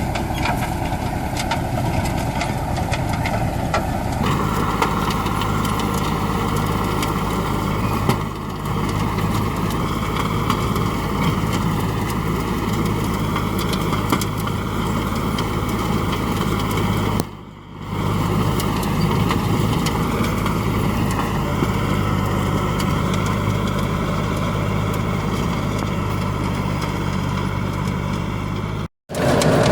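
Tractor engine running steadily while pulling a bed-forming plastic-mulch laying implement. The sound changes character about four seconds in and briefly cuts out a couple of times.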